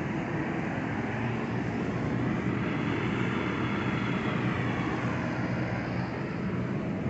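Steady mechanical drone of running machinery: a low hum under an even hiss, with no separate knocks or strokes.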